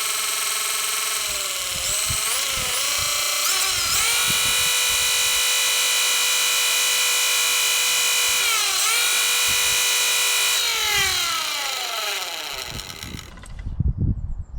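Electric motor spinning a cylinder mower's reel at speed to fling off wash water, its whine dipping briefly in pitch a few times. Near the end it winds down with a falling whine and stops, followed by a few low knocks.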